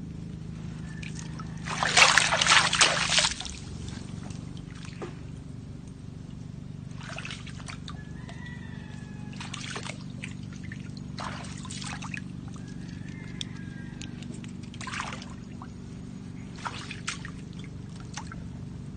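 Water splashing and sloshing in irregular bursts, loudest for about a second and a half near the start, over a steady low hum.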